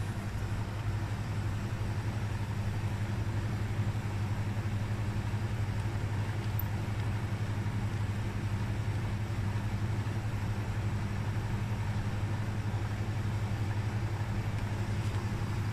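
A steady low machine hum with a faint hiss over it, unchanging throughout.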